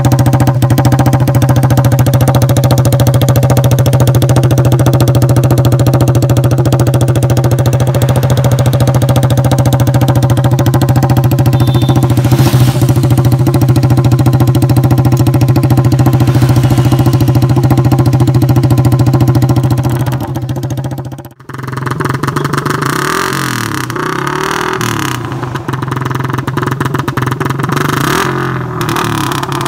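Suzuki Raider R150 Fi single-cylinder engine through an open Vmax elbow exhaust pipe, running loud at a steady speed. After a cut about two-thirds through, it is revved up and down several times.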